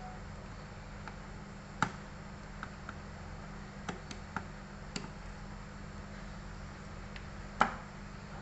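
Sharp clicks and taps of small hard laptop parts and tools being handled during a processor swap on an open HP EliteBook 8440p. There are about eight of them, irregularly spaced, the loudest about two seconds in and near the end, over a steady low hum.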